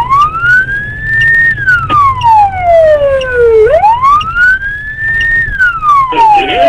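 Police car siren on a slow wail: the tone rises over about a second and a half, holds briefly, then falls over about two seconds, going through the cycle twice.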